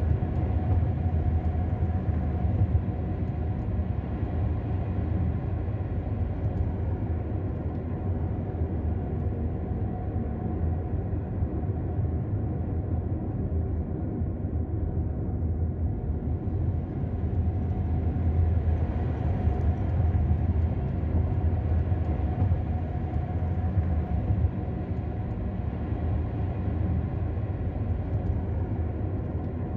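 Steady low rumble of a car driving on a mountain road, heard from inside the cabin: engine and tyre drone that swells slightly partway through.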